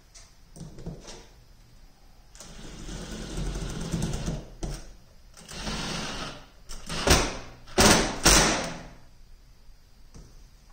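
Handling noise: rubbing and scraping as a rubber coupling is worked onto a PVC dust-collection pipe, followed by three loud sharp knocks a few seconds later.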